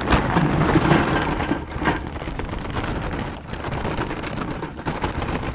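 Big chunks of lump charcoal poured from the bag into the bowl of a Weber Summit charcoal kettle grill, a dense rattling clatter of pieces tumbling onto each other. The pour is heaviest for about the first two seconds, then thins to a lighter trickle.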